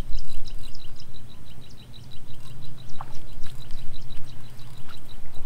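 Low wind rumble on the microphone, rising and falling, under a high chirp from a small animal repeating steadily about five times a second.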